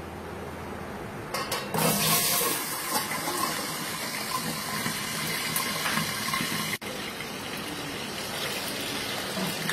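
Potato chunks going into hot sunflower oil in an aluminium pressure cooker: a loud frying sizzle starts suddenly about a second and a half in and keeps on steadily, broken once for an instant near the seven-second mark.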